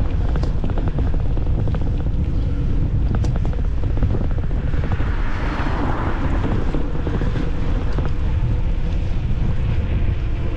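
Strong headwind rumbling on the microphone of a moving bicycle, a steady low buffeting mixed with road noise. A broader swell of hiss rises about five seconds in and fades a couple of seconds later.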